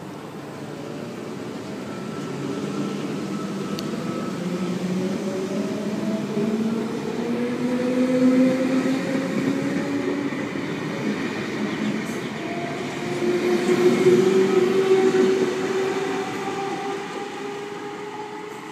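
Double-deck V-set intercity electric train departing and accelerating past, its motors whining steadily upward in pitch in two rising sweeps, loudest about eight and fourteen seconds in.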